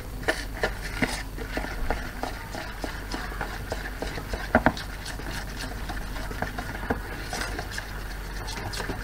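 Wooden spoon stirring thick icing in a plastic mixing bowl, knocking and scraping irregularly against the bowl, with two louder knocks about halfway through.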